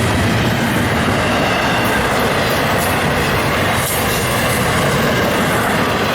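A train passing close by: a loud, steady rumble of wheels on the rails with faint clicks.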